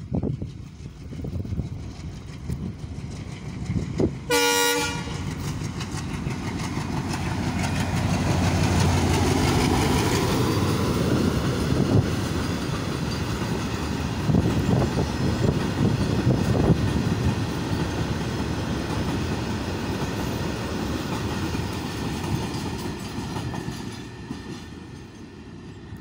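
A goods train's locomotive sounds one short horn blast about four seconds in, then its engine rumble builds as it approaches and passes. The empty hopper wagons follow with steady wheel clatter over the rail joints, fading as the train moves away near the end.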